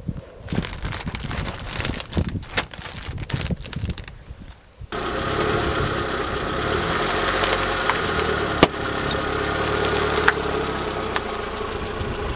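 About four seconds of scattered crackling and rustling clicks, then a car engine idling steadily, starting and stopping abruptly.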